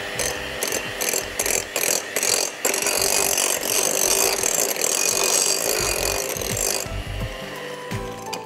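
A spoon stirring and scraping cake ingredients around a mixing bowl, a continuous rough scraping made of irregular strokes that stops about seven seconds in.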